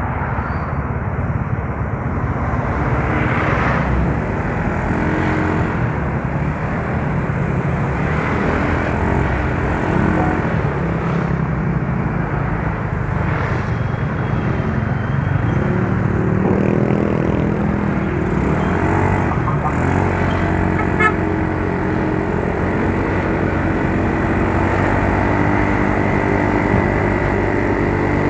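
Yamaha Mio Soul scooter's single-cylinder four-stroke engine running under way, its pitch shifting as the throttle changes about halfway through, over wind and road noise. The scooter has been hard-starting and its idle keeps dying, which the owner takes as a sign that a part is about to fail.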